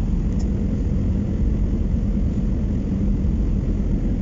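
Steady low rumble of an Airbus A319 heard from inside the passenger cabin: engine and airflow noise with a faint steady hum.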